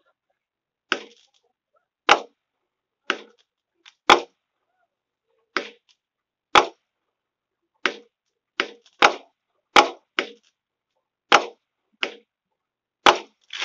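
Fireworks going off: about fifteen sharp bangs at irregular intervals, roughly one a second, some closer together, each dying away quickly.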